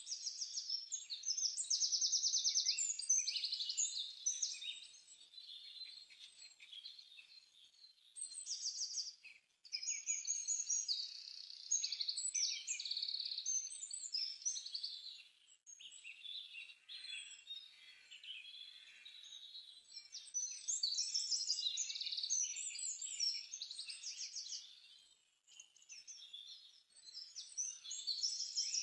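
Birdsong: small birds chirping and singing almost without pause, with several fast, high trills.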